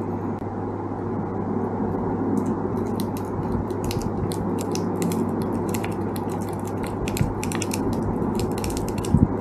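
Shimano SLX DC baitcasting reel being cranked by hand, giving a fast run of small mechanical clicks from about two seconds in, over a steady low hum.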